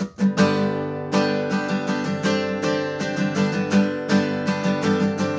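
Acoustic guitar strumming chords in a steady rhythm, starting suddenly at the beginning.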